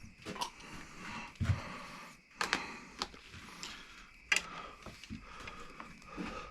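Scattered light clicks and knocks with some rustling as parts are handled near a motorcycle's handlebar.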